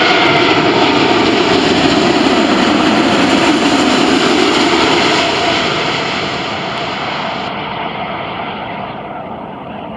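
Airbus A380's four Rolls-Royce Trent 900 engines passing low overhead on landing approach: a loud jet rush with whining tones that fall in pitch as it goes over, then fading gradually as it moves away toward the runway.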